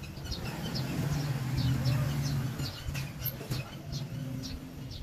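Gas torch flame hissing as aluminium rod is melted onto a steel tube, with a low hum swelling from about one to two and a half seconds in. A bird chirps over and over in short high notes, two or three a second.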